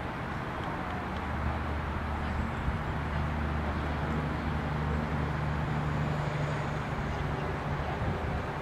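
Steady low hum of an idling engine over constant outdoor background noise, the hum strongest in the middle of the stretch.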